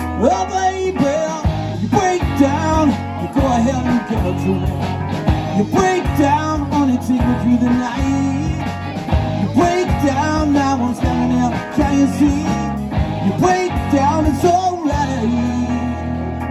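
Live rock band playing an instrumental passage: a lead guitar line with bending notes over bass, drums and keyboard, with a steady beat.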